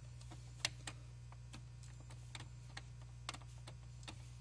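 Scattered faint clicks and ticks of a wire being handled and worked into the terminal block of a hot tub control pack, the sharpest about two-thirds of a second in, over a steady low hum.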